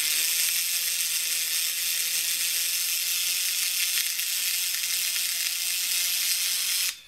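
Duracell drumming bunny's small battery motor driving its plastic gear mechanism, a steady whirr that cuts off suddenly near the end. It doesn't sound good: the mechanism has been knocked about, and the loose cog is held in mesh by hand.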